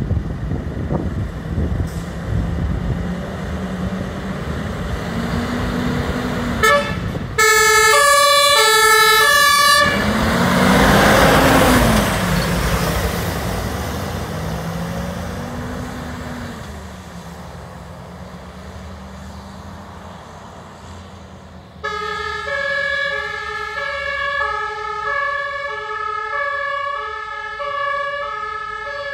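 Fire engine's engine running as it pulls out, then its two-tone siren (Martinhorn) sounds for about two seconds, followed by a loud rush of engine and road noise as it passes that slowly fades. About 22 s in a two-tone siren starts again and keeps alternating high and low.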